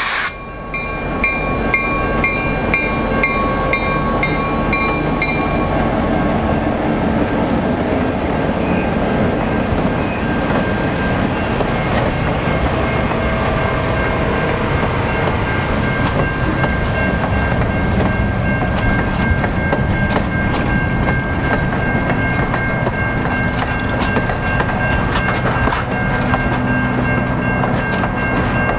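A locomotive-hauled train passing close by, its wheels clattering over the rail joints. The horn cuts off just as it begins, a bell rings on over the first few seconds, and a steady high wheel squeal sets in about eight seconds in.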